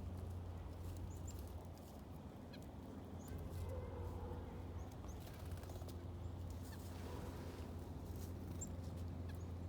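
Faint bird calls, a few short high chirps and a wavering call about four seconds in, over a steady low hum.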